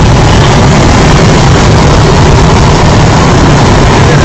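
Strong storm wind blowing across the microphone: a loud, steady rush, heaviest in the low end, with no breaks.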